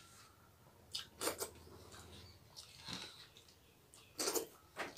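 Eating by hand: rice being mixed on plates, and the mouth sounds of a handful being taken and chewed. There are a few short, sharp smacks, the loudest about four seconds in.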